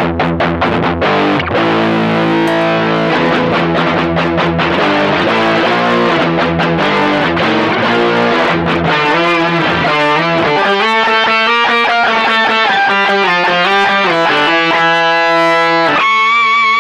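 Distorted electric guitar playing power-chord riffs through an Electro-Harmonix Micro POG polyphonic octave pedal, whose added octaves thicken the chords. Quick chugging chords at first, then slower ringing chords from about ten seconds in.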